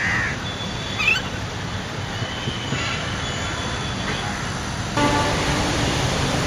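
Steady low rumble of distant road traffic, with a few short high chirps near the start and a louder held pitched sound from about five seconds in.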